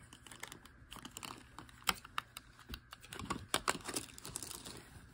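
Clear plastic wrap being peeled and pulled off a hard plastic stand, with irregular small crackles and clicks as the film and the plastic are handled.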